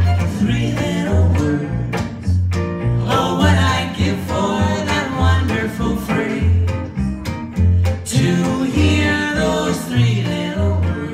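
Live western swing trio: upright bass keeping a steady beat under archtop guitar chords, as the fiddle gives way to a woman singing the vocal at the microphone.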